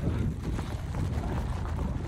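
Wind gusting against the microphone in a winter snowstorm: a steady low rumble with a fainter hiss above it.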